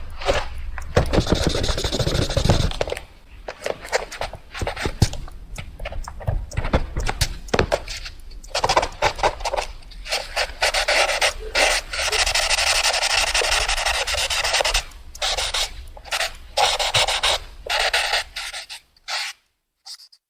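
Fast handwriting on paper: a pen or pencil tip scratching in quick strokes with taps, with longer runs of continuous scratching, stopping about a second before the end.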